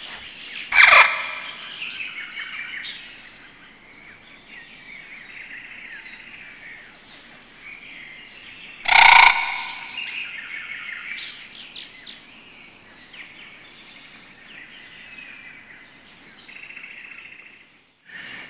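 Recorded birdsong of many birds chirping and singing, broken twice by a short loud cry: once about a second in and again about nine seconds in.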